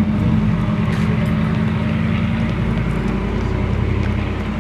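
Car driving at a steady speed: a steady low engine drone with road noise.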